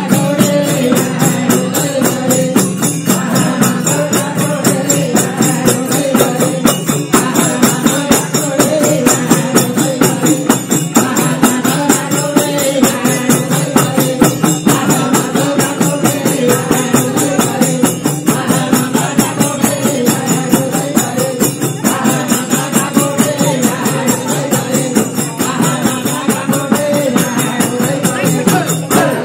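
Live Nepali bhajan: voices chanting a devotional song over a harmonium's steady chords, with hand percussion and jingling cymbals keeping a steady beat.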